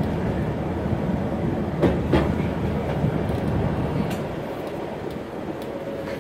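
Mountain rack-railway train running: a steady rumble of the carriage on the track, with a couple of knocks about two seconds in, easing a little in the second half.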